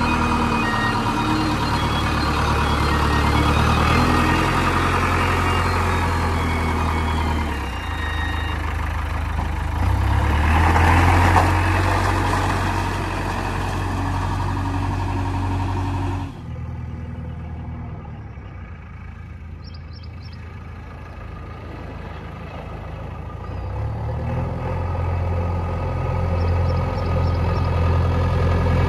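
JCB 3DX backhoe loader's diesel engine running as the machine drives, getting louder around ten seconds in. Two-thirds of the way through the sound drops off suddenly. The engine is then heard farther off, growing steadily louder as the machine comes closer.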